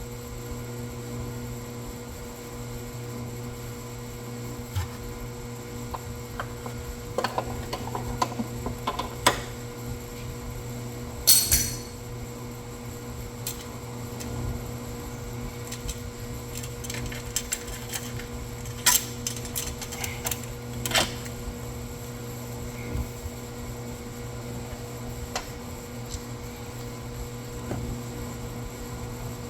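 Hand tools clicking and clanking against metal parts on a car during motor mount work, in scattered knocks with the loudest cluster about a third of the way in. A steady hum runs underneath.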